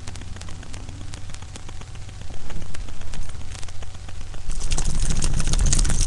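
Handling noise from a plush toy being rubbed and pressed against the webcam and its microphone: scattered small crackles, then a louder rustling scrape over the last second and a half, over a low steady hum.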